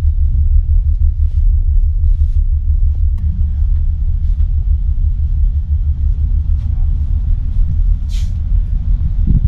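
Steady low rumble of a fast catamaran ferry's engines running underway, heard from inside the bridge.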